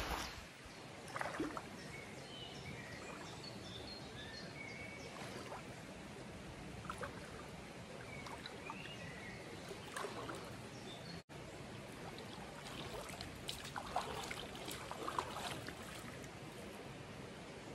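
River water flowing steadily, with a few short bird chirps over it in the first half.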